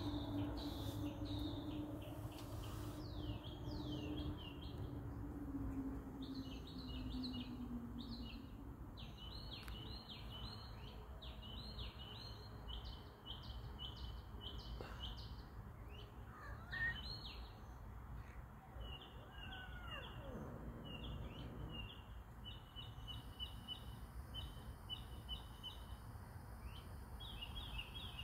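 Birds chirping outdoors in repeated short high-pitched phrases over steady background noise. A low hum slowly drops in pitch and fades out about eight seconds in.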